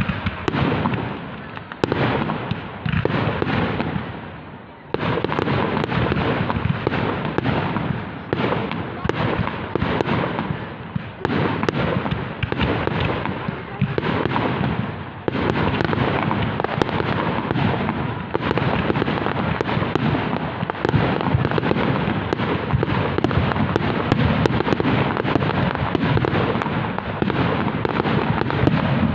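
Fireworks display: a dense, nearly unbroken run of bangs and crackles from aerial shells bursting, with a brief lull about four seconds in, then loudest near the end.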